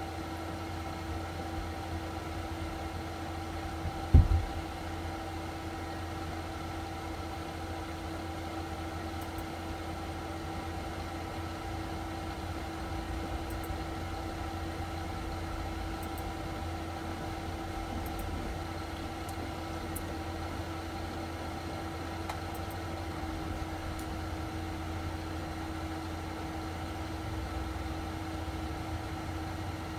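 Steady machine hum with a few fixed tones over a low rumble, and a single low thump about four seconds in. Faint high clicks sound now and then.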